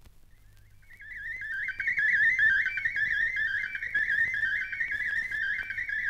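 Radio facsimile picture signal from a vintage BBC sound-effects record: a high electronic tone that warbles rapidly up and down in a repeating pattern. It starts about a second in, after a moment of faint record hum.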